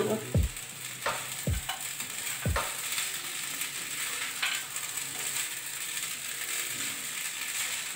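A spatula stirring and tossing flattened-rice pulao in a nonstick kadai over the flame, with soft scraping and a light sizzle. There are a few knocks of the spatula against the pan in the first few seconds.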